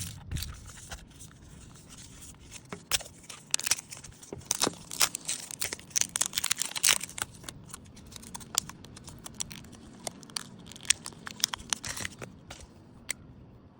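Packaging being torn open and handled by hand: an irregular run of sharp crackles and rustles, densest through the middle, that stops near the end.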